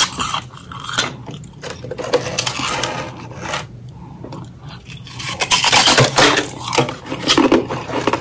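Close-miked crunching of ice and freezer frost being bitten and chewed, with sharp clicks of ice on a metal tray; the crunching is densest and loudest in the last third.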